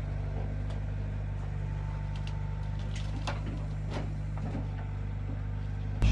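A vehicle engine running at a steady low drone, with a few faint clicks over it.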